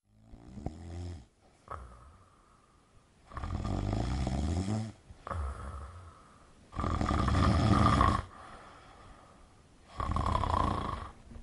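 A person snoring: four snores about three seconds apart, each lasting a second or so. The first is the faintest and the third the loudest.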